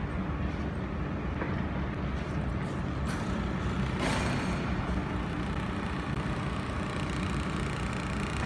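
Steady low hum and hiss of a four-axis laser welding machine and its cooling unit running, with two brief sharp sounds about three and four seconds in as the laser begins welding the motor component.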